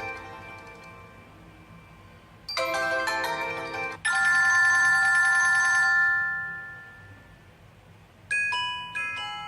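Built-in ringtone and notification tones of an HTC Desire 601 played one after another. The first is a short chime of several bell-like notes about two and a half seconds in. A bright held ringing tone follows at about four seconds and dies away, and a new chime starts near the end.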